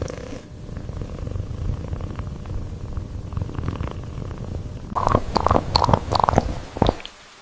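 Kitten purring close to the microphone, a steady low rumble. About five seconds in, a run of short, louder sounds lasts about two seconds, then everything stops abruptly.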